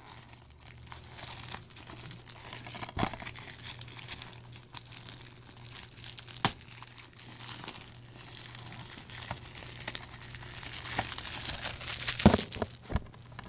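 Plastic shrink-wrap being peeled and torn off a DVD case: crinkling with a few sharp clicks, growing louder near the end.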